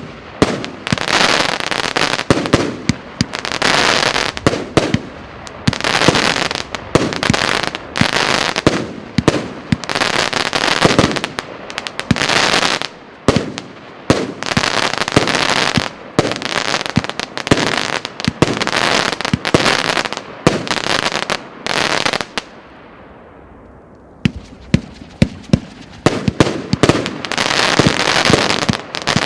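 A 100-shot fireworks cake of 25 mm calibre firing shot after shot in quick succession, with sharp launch reports and bursts overlapping. About 22 seconds in the firing dies away briefly, then sharp single shots start again.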